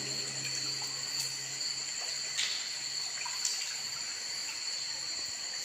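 Shallow water trickling and splashing underfoot as people wade along a wet, muddy tunnel floor, over a steady high hiss with a few faint clicks. A low hum fades out about two seconds in.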